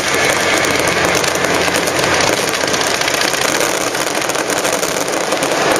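Fireworks display going off continuously: a dense, steady crackle of many small reports with no pause.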